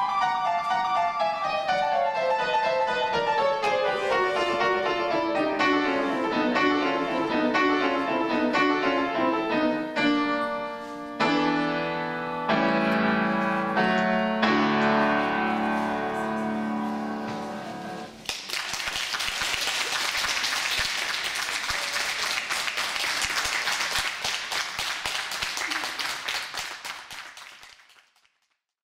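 Grand piano (August Förster) played in rapid descending runs for about ten seconds, then a string of loud sustained chords that end the piece. About eighteen seconds in, the audience breaks into applause, which fades out near the end.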